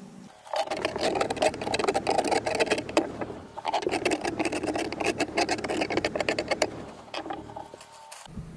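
Hand tool scraping and prying rotted plywood out of a boat's cabin floor, a dense crunching and scraping of wet, crumbling wood in two spells of about three seconds with a short pause between, fading near the end.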